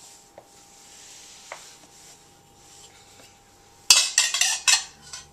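A few faint clicks, then about four seconds in a loud burst of rattling clatter from hard objects knocked together, lasting under a second.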